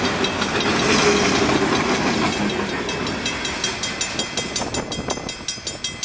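Freight train cars rolling past, their wheel noise fading as the end of the train goes by. A level-crossing warning bell rings rapidly over it and becomes clearer in the second half as the train noise dies away.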